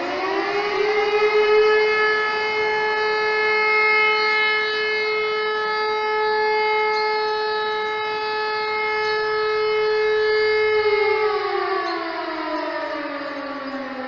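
Civil defense warning siren sounding during a siren test. It finishes rising in pitch in the first half second, holds one steady tone for about ten seconds, then winds down in pitch near the end.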